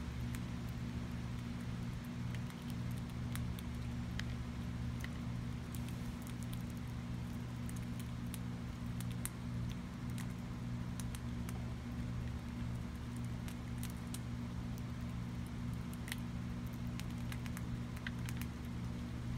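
Gray squirrel chewing food at a wooden feeder box: scattered sharp clicks and crackles over a steady low hum.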